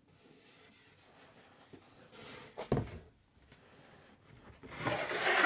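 A foam seat cushion on a wooden seat board being turned over and set down on a wooden workbench: soft rustling of the foam and plastic wrap, one thump about two and a half seconds in, and louder rustling and sliding near the end.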